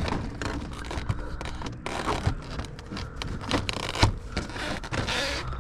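Irregular rustling and scraping handling noises over the steady low drone of a running vehicle.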